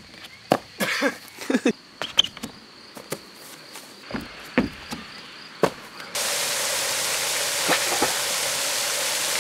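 Sharp slaps and thuds of hands and feet striking a concrete ramp during parkour moves, over a steady high insect trill. About six seconds in, the sound cuts abruptly to a loud, steady rushing hiss of a pond fountain's spray.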